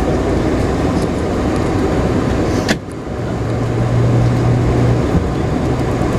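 Steady cabin noise inside a Boeing 747-436 taxiing: engine and air-conditioning hum with ground rumble. A sharp click comes a little before the middle, the noise dips briefly, and then a steady low hum sets in.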